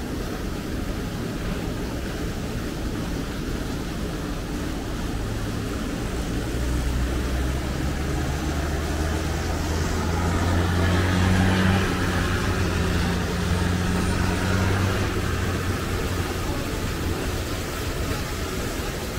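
Low engine drone with a steady hum, growing louder toward the middle and easing off again near the end, over a constant low rumble.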